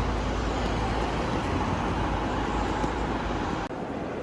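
Steady background rumble and hiss of a busy airport, dropping suddenly near the end.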